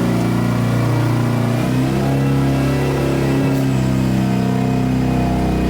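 Mazda RX-7 FD's twin-turbo 13B rotary engine running just after startup on premix fuel. The idle rises slightly about two seconds in and settles back down near the end.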